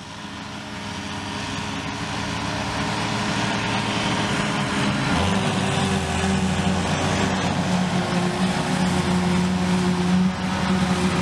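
Diesel engines of heavy farm machinery running steadily, fading in over the first few seconds, with the engine pitch shifting about five and eight seconds in.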